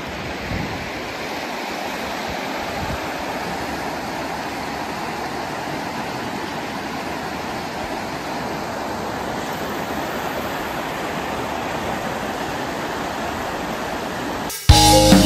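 Fast river water rushing over rocks, a steady even wash. Music with drums and guitar cuts in suddenly near the end, louder than the river.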